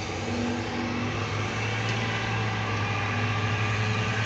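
A steady low engine hum over a wide rushing noise, like motor traffic, growing slightly louder about a second and a half in.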